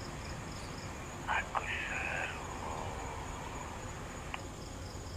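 Night insects in a tropical forest: a steady high trill with short chirps repeating now and then. About a second and a half in come two short knocks and a brief mid-pitched noise, and a single tick shortly before the end.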